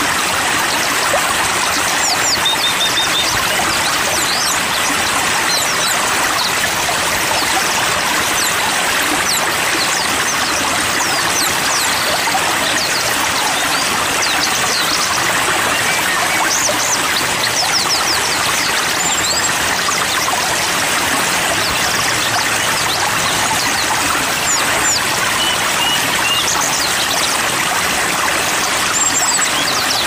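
Steady rush of flowing water with small songbirds chirping over it: many brief high chirps and short runs of quick repeated notes, scattered throughout.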